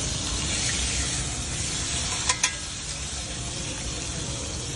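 Steak and garlic sizzling steadily in a cast-iron pan over hot charcoal, with two sharp clicks a little over two seconds in.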